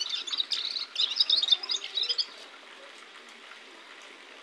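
Caged gulsar songbird singing a fast twittering run of high chirps. The song stops about two and a quarter seconds in, leaving faint hiss.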